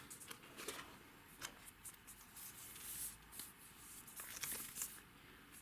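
Faint rustling and scattered light clicks of a phone's cardboard box and its packaging inserts being handled.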